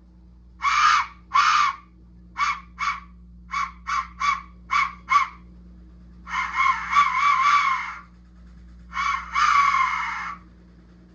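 Aztec death whistle blown in a string of blasts, each a harsh, wavering, scream-like shriek. It gives two short blasts, then a quick run of about seven shorter toots, then two longer blasts of a second and a half or more.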